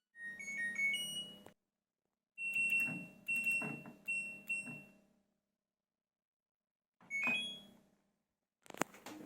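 LG Direct Drive washing machine control panel beeping: a short three-note rising chime, then four single beeps, then another rising chime. Two sharp clicks near the end.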